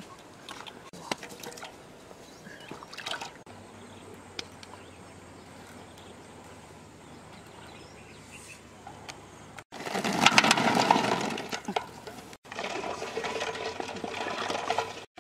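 Water splashing and rushing in two loud stretches separated by abrupt cuts, the first the louder, after several seconds of faint scattered clicks and knocks.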